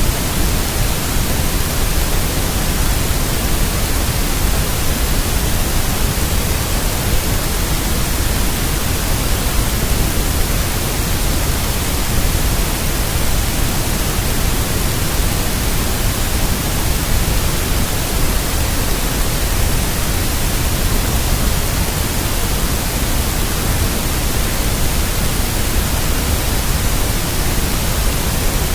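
Steady, even hiss of static noise, like white noise, with no rhythm or change.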